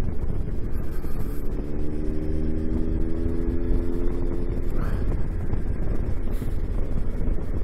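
Triumph Tiger 1200 motorcycle riding at road speed, a steady low rumble of engine and wind over the microphone. About a second in, an engine note comes through and rises slowly for a few seconds, then fades out near the five-second mark.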